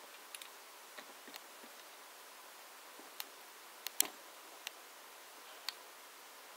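Steady faint hiss with a scattered series of small sharp clicks and taps, the loudest about four seconds in.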